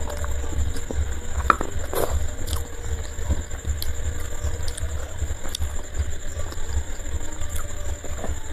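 Steady low fluttering rumble with a thin high-pitched whine over it, and a few soft clicks of fingers picking food off a ceramic plate.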